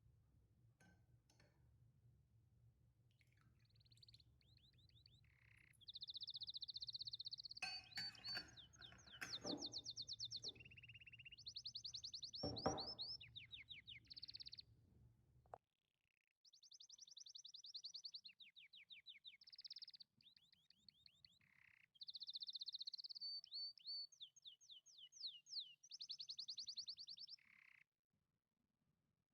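High-pitched chirping trills in quick runs of rapid pulses. The same pattern comes round again about sixteen seconds later, as in a looped background track. A low hum underneath stops suddenly about halfway through.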